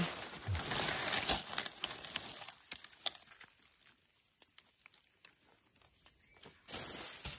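Rustling and small snapping clicks of undergrowth and leaf litter being moved through, in two spells (about the first two seconds, then briefly near the end), over a steady high-pitched insect drone.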